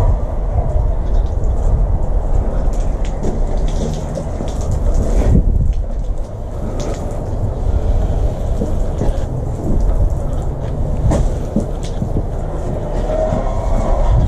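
Water-fed pole brush scrubbing window frames and door glass, its water jets spraying, over a steady low rumble with scattered light knocks of the pole head.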